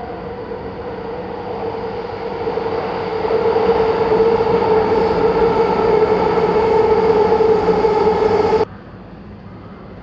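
A train running past on the line, a steady rumbling hum that grows louder about three seconds in and cuts off sharply near the end.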